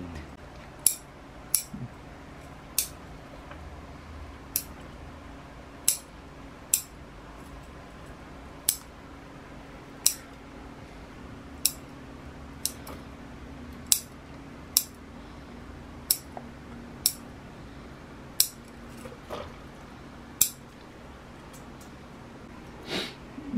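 Small bonsai scissors snipping the new shoots of a sekka hinoki cypress: single sharp snips at an uneven pace, roughly one every second or so, about seventeen in all.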